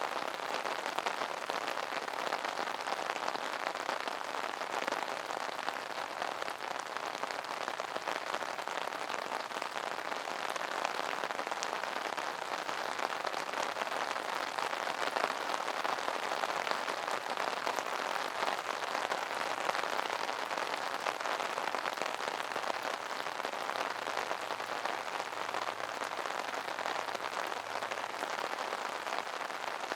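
Steady rain pattering on an open umbrella, a dense continuous patter of drops striking the canopy.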